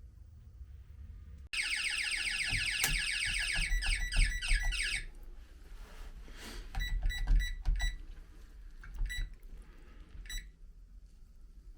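Texecom intruder alarm system being powered up: a loud, fast-warbling alarm tone sounds for about three and a half seconds, then stops. A run of short single-pitched beeps follows at uneven spacing, like keypad key presses.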